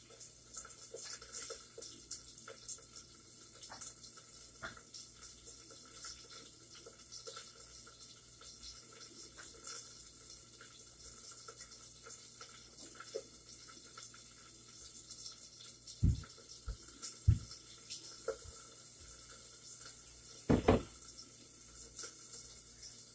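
Quiet kitchen sounds: a faint, steady crackling hiss, then a few dull knocks of handled pots or dishes in the last third.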